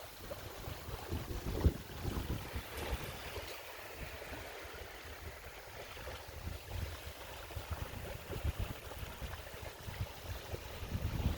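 Sea water washing and lapping, with wind buffeting the microphone in irregular low rumbles and a single louder bump about a second and a half in.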